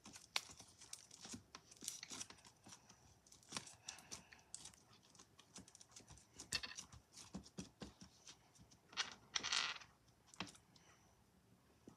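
Fingers poking and pressing clear slime with black beads in a small plastic tub, giving faint, irregular sticky clicks and crackles, with one longer crackle about nine and a half seconds in.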